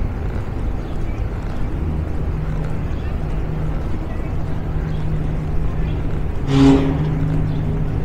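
Steady low hum of vehicle traffic, with one short, loud pitched sound about six and a half seconds in.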